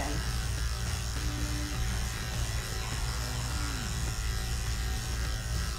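Corded electric dog grooming clippers buzzing steadily as they trim a Welsh Terrier's coat.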